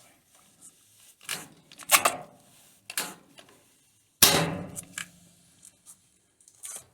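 Four separate knocks of tools or parts being handled in a workshop, the loudest about four seconds in and ringing briefly afterwards, with a faint click near the end.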